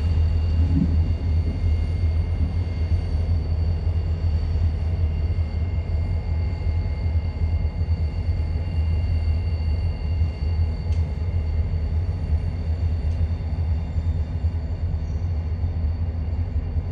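Diesel locomotives, EMD GP40-series, rumbling in a steady deep drone, with faint steady high-pitched tones above it.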